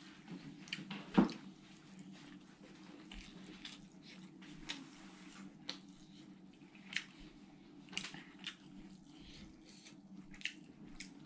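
Eating rice and curry by hand: wet chewing, lip smacks and soft squelches of fingers in the rice as scattered short clicks, one sharper smack about a second in, over a low steady hum.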